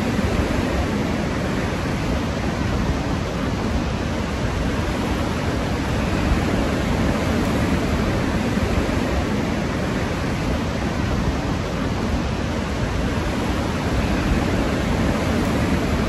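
High wind blowing steadily over a mountain ridge, buffeting the microphone with a low rumble.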